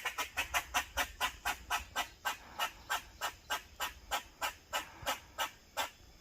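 Grey squirrel barking in a long run of short, sharp calls, about four or five a second at first and slowing to about two a second near the end. This is its alarm barking, a protective behaviour.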